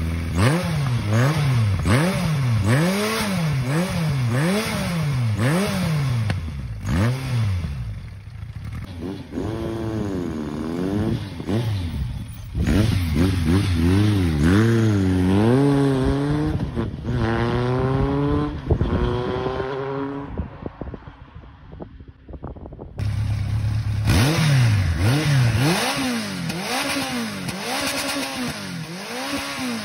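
Air-cooled inline-four motorcycle engines through aftermarket exhausts. First a Kawasaki Zephyr 1100 is revved in a quick series of throttle blips. Then a motorcycle pulls away, its revs rising and dropping with each upshift as it fades into the distance. After a cut, a Honda CB1100 is blipped in the same way near the end.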